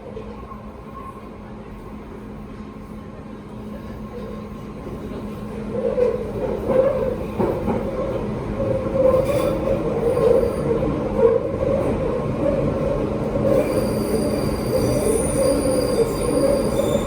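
London Underground Piccadilly line train running through a station without stopping. The rumble builds about five seconds in and stays loud, and high-pitched wheel squeal joins near the end.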